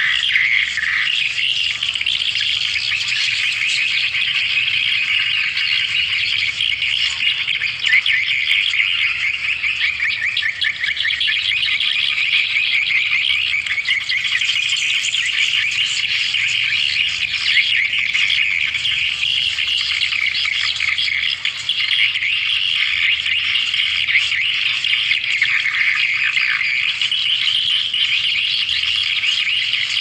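Dense, unbroken chatter of swiftlet chirps and twitters, the lure call used to draw swiftlets to a nesting house. The chirping is high-pitched and steady in level throughout.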